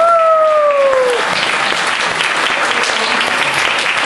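Audience applauding steadily, with a short falling tone sounding over the clapping in the first second.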